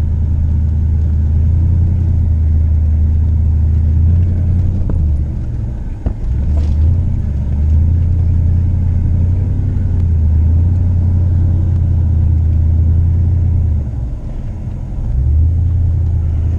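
Pickup truck driving over a rough trail, heard from inside the cab: a steady low engine and drivetrain rumble that dips briefly twice.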